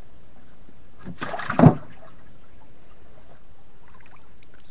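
A single splash of water beside a wooden canoe about a second and a half in, followed by a faint water background.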